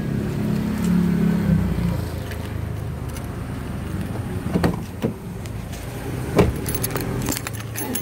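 A motor vehicle engine running at a steady idle, with a few sharp metallic clinks, the loudest about six seconds in.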